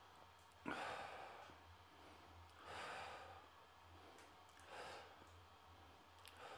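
A man's slow, deep breaths: four audible exhales about two seconds apart, the first and loudest about a second in. A faint low steady hum runs underneath.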